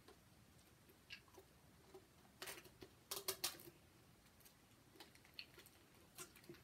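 Faint crackling of plastic wrapping and small clicks of a Pokémon card tin being handled and opened by hand, in scattered short bursts with a cluster about two and a half to three and a half seconds in.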